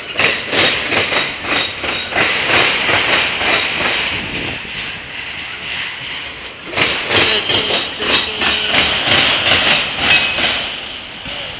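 Autorack freight cars rolling past, their wheels clattering over rail joints and crossing tracks in fast, irregular clicks. The clatter eases off in the middle for a couple of seconds, then comes back loud.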